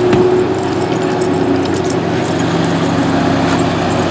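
Kubota SSV75 skid steer loader's diesel engine running steadily under load as the loader pushes its bucket into a pile of dirt.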